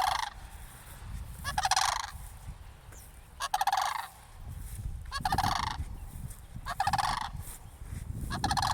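Cranes calling: a series of rolling, rattling calls, one about every one and a half to two seconds, each lasting about half a second. The recordist wonders whether the birds are calling out of alarm at her approach.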